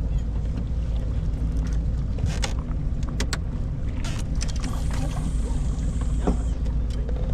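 Steady low rumble aboard a fishing boat, with a few short clicks and knocks in the middle and a brief falling squeak near the end.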